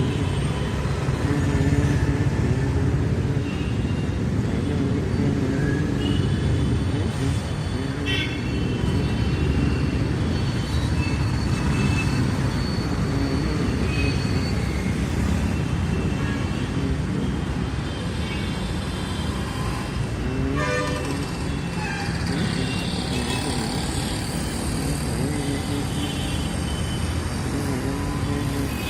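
Busy city street traffic: a steady rumble of engines with short car horn toots sounding here and there, a longer horn blast about two-thirds of the way through.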